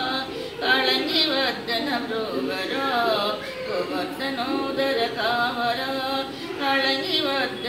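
A woman singing a Telugu devotional song solo, in long gliding, ornamented notes.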